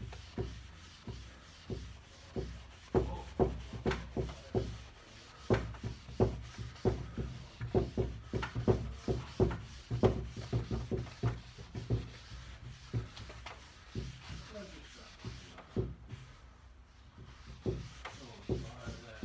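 A hand pad being rubbed briskly back and forth over a waxed pine tabletop to buff it, in quick irregular strokes, a couple a second. The strokes ease off briefly near the end, then pick up again.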